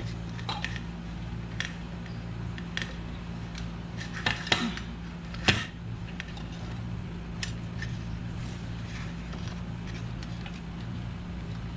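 Scattered small clicks and light metallic rattles of wires and terminals being handled and fitted at a sheet-metal air-conditioner control-box bracket, the sharpest clicks about four and five and a half seconds in, over a steady low hum.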